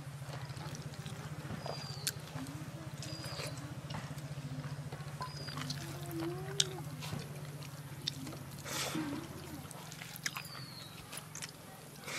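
Outdoor ambience: a steady low hum, with a few short animal calls and bird chirps over it and scattered sharp clicks.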